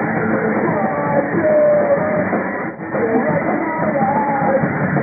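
Live rock band playing loud, with a singer's vocal over guitars and drums. The music drops out briefly just under three seconds in.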